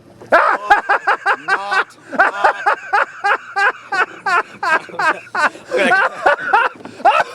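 A person laughing hard in a long fit of rapid, breathy 'ha' bursts, about three or four a second, the kind of laughing fit that catches in the throat.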